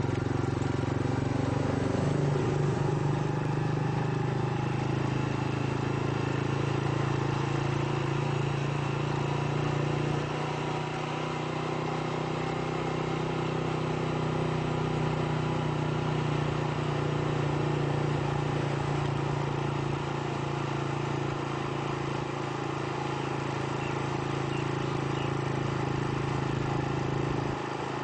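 Engine hum and road noise of a moving car, heard from inside, steady throughout with the engine note shifting slightly about two and ten seconds in.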